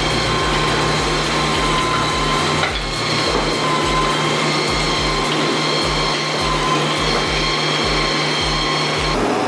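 Wood-processing machine running steadily, with a constant whine and a low thumping about twice a second.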